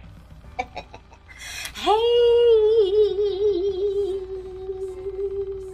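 A woman's voice singing one long held note with vibrato, starting about two seconds in.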